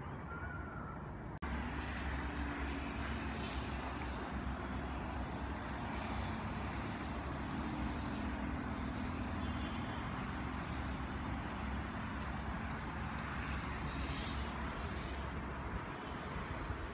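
Outdoor ambience: a steady distant engine drone with a low wind rumble on the microphone. The sound drops out briefly about a second in and comes back louder.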